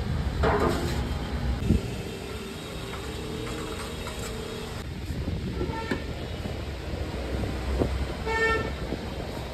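Street traffic rumbling, with a low thump a little under two seconds in and a vehicle horn honking briefly twice, faintly about six seconds in and louder about eight and a half seconds in.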